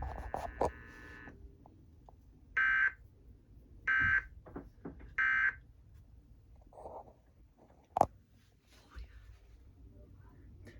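Three short buzzy bursts of EAS SAME digital data tones, about 1.3 seconds apart: the end-of-message signal that closes the alert. A single sharp click follows near the end, with a few faint ticks.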